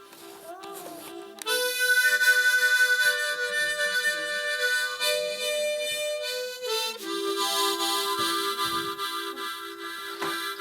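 Harmonica playing long held chords, with a change of chord about a second and a half in and another around seven seconds.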